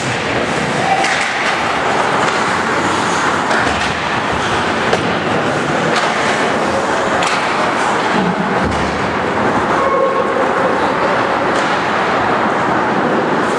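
Ice hockey play in an indoor rink: a steady, loud scraping of skates on the ice, with scattered sharp clacks of sticks and puck and a few brief calls.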